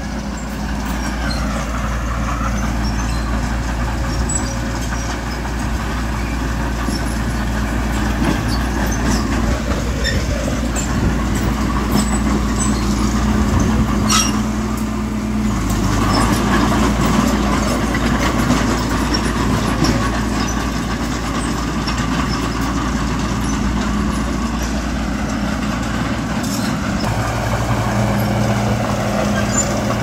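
Heavy diesel engines of earth-moving machinery running steadily under work, their engine tones shifting about halfway through. A single sharp knock sounds near the middle.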